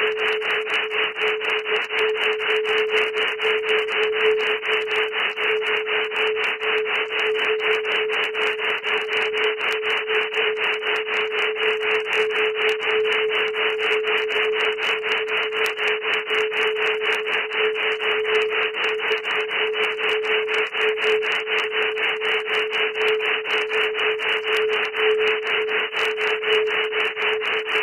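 Synthesized audio signal: a steady mid-pitched tone under a band of hiss that pulses rapidly, several times a second, without change.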